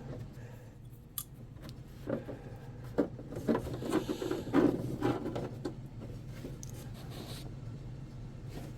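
Light clicks, knocks and rubbing as parts are handled and shifted about, over a steady low hum; the handling sounds thin out after about six seconds.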